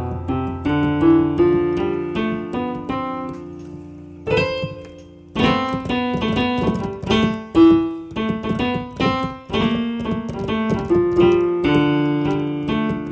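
Yamaha Clavinova CVP-79 digital piano playing its stereo grand piano sample with the sostenuto (middle) pedal. A low held chord keeps ringing under shorter notes played above it for about the first four seconds. From about five seconds in comes a busier passage of many short, unsustained notes.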